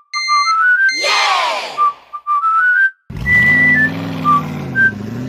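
A cheerful whistled jingle, a short whoosh effect about a second in, then from about three seconds in a cartoon vehicle engine running and revving under the whistling, its pitch dipping and rising again near the end.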